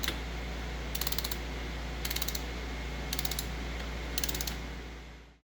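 Ratchet wrench clicking in four short bursts about a second apart as the engine cover bolts are run down, over a steady low hum; the sound fades out near the end.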